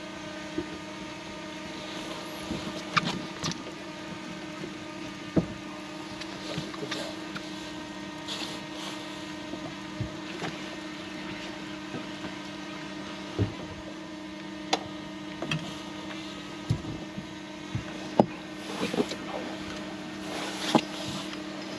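A boat motor humming steadily at a low pitch, with scattered light knocks and clicks over it at irregular times.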